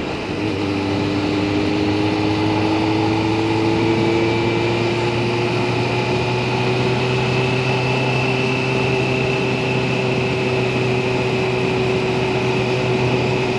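Motorcycle engine running while under way, with wind and road noise. Its pitch rises slowly over the first several seconds as the bike picks up speed, then holds steady.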